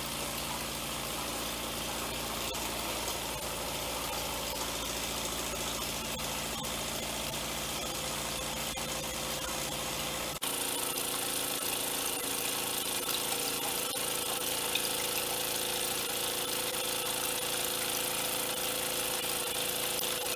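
Doll 320/5 toy vertical steam engine running steadily, driving a small toy dredger through a string belt. The sound changes abruptly about ten seconds in, with a stronger high hiss and less low rumble.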